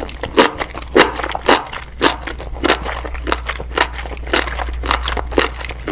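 A person chewing mushrooms, about two chews a second, over a low steady hum.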